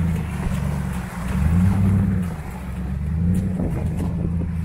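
Chevrolet pickup truck's engine rumbling as it crawls through mud, swelling and easing off as the throttle is worked, loudest about two seconds in.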